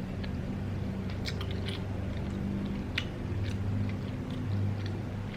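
Close-miked chewing of a mouthful of food, with scattered soft wet mouth clicks.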